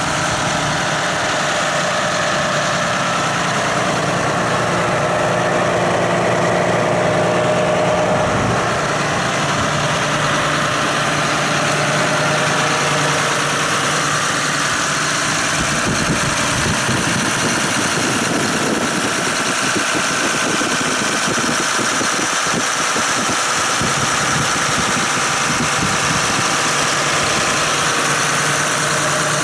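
John Deere 6215R tractor's six-cylinder diesel engine idling steadily.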